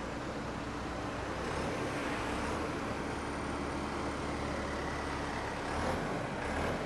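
City street traffic: a heavy road vehicle's engine running nearby, a little louder from about two seconds in, with faint high squeals now and then.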